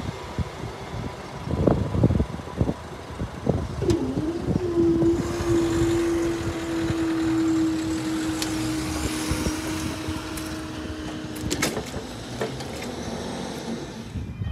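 Level crossing barrier mechanism humming steadily as the barriers rise after a train has passed. The hum starts about four seconds in with a brief wobble in pitch and stops with a click at about eleven and a half seconds. Before it, wind gusts on the microphone.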